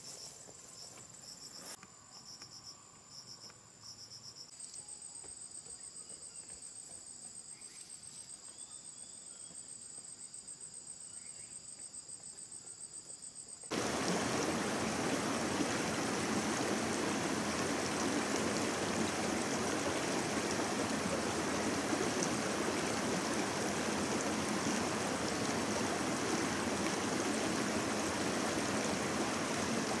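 Crickets or similar insects trilling in steady high tones, pulsing at first. About fourteen seconds in, a loud steady rushing noise cuts in abruptly and drowns them out.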